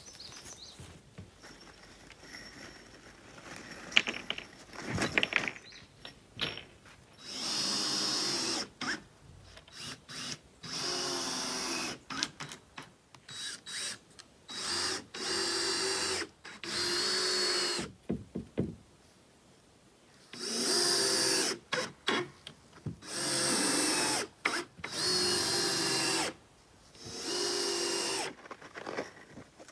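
Cordless drill driving fasteners into the plywood decking of a tent platform, in about eight separate runs of a second or two each with short pauses between. A few knocks come before the first run.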